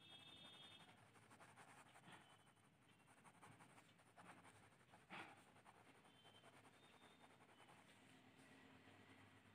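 Red pen scratching faintly on paper in quick back-and-forth hatching strokes, with one louder stroke about five seconds in.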